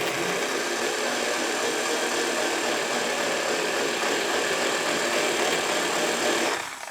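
Electric drill running steadily, its bit boring into a brass padlock body to reach the core retaining pin; it stops shortly before the end.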